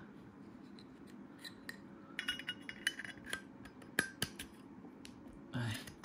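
Zippo lighter being handled: faint, scattered metallic clicks and clinks, with a busier cluster of sharper ones in the middle.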